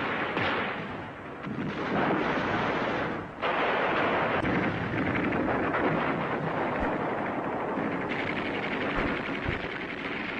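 Continuous battle din of gunfire and explosions, a dense steady roar that dips briefly about three seconds in.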